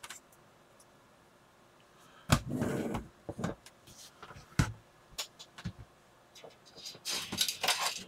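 Bench handling noise: a plastic instrument cluster being turned over and set down with a clatter about two seconds in, then a few separate knocks and small clicks, and a rustling, clicking stretch near the end as wires and test leads are handled.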